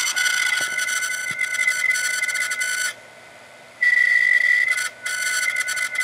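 Failed Seagate Barracuda 7200.10 750GB hard drive squealing with a high, steady whistle-like tone: the sign of a failed read/write head riding the platter. The squeal cuts out for about a second near the middle, comes back louder, and dips briefly again soon after.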